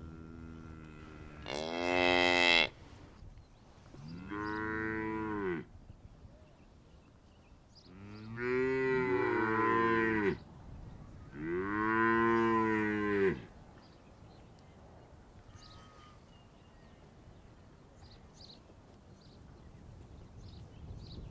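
Bovine mooing: long, drawn-out calls, the loudest about two seconds in and another around four seconds. Around eight seconds two animals call over each other, and a last moo comes around twelve seconds. After that there is only a low background.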